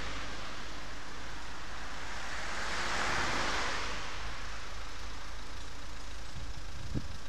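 Motorcycle ridden slowly in traffic: the engine runs under steady wind and road noise on the camera, and the noise swells about three seconds in.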